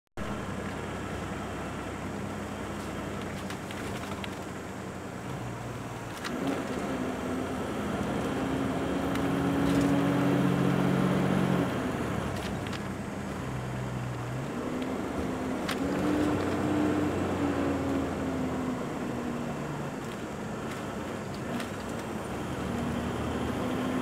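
Road noise inside a moving vehicle: a steady rush of tyres and wind with a low engine hum that swells and rises in pitch twice, about a quarter of the way in and again past the middle, and a few sharp clicks.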